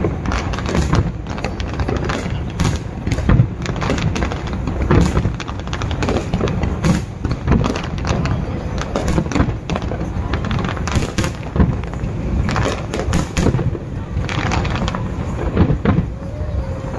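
Aerial fireworks going off in rapid succession: a dense run of bangs and crackles, with voices and music underneath.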